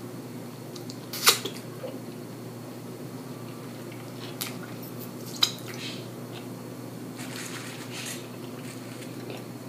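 Eating mouth noises: fingers being sucked clean with wet lip smacks, two sharp smacks about a second in and about five seconds in, then quieter chewing, over a steady low hum.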